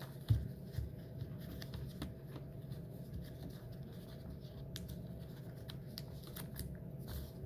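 Paper rustling and crinkling as the corners of a folded paper strip are bent over and creased down by hand against a wooden tabletop, with scattered small ticks and a soft thump near the start, over a steady low hum.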